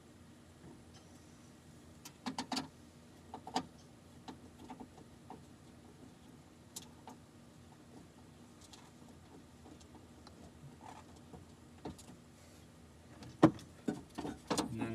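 Scattered clicks and metallic knocks of hands and a screwdriver working on a window regulator inside a car door's steel shell. There is a short cluster about two seconds in, another knock a second later, and a busier run of louder knocks near the end.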